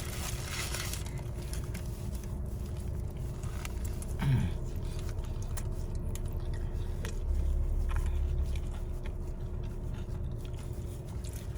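Faint chewing and mouth sounds of a person eating a meatball sub, with a short hummed vocal sound about four seconds in, over a steady low rumble.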